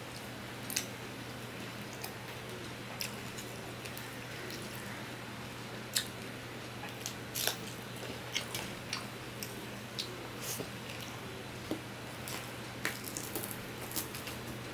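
Close-miked eating sounds: a man chewing and smacking mouthfuls of rice and fish curry, with many short sharp clicks as his fingers mix rice on a steel plate. A steady low hum sits underneath.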